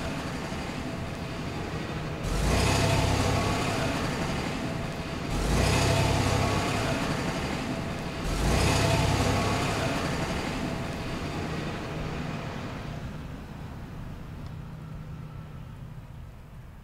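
Car engine sound effect: three loud swells of motor noise about three seconds apart, each surging in and fading away, then the sound slowly dies out.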